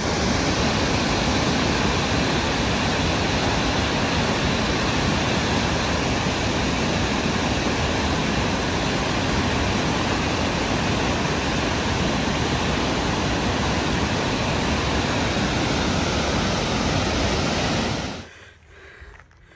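Loud, steady rush of water pouring over a river weir, cutting off abruptly about 18 seconds in.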